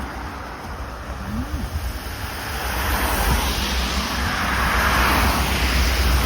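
Road traffic passing: the tyre and engine rush of an approaching vehicle grows steadily louder from about two and a half seconds in, over a constant low rumble.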